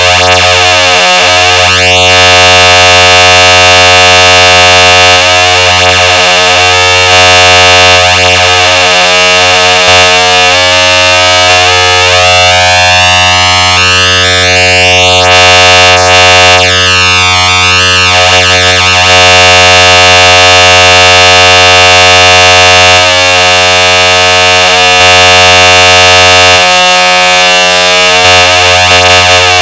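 Emergency Alert System-style alert tone, digitally distorted and clipped into a harsh, loud buzz of many steady tones at once. Sweeping, swirling effects run through it from about twelve to eighteen seconds in.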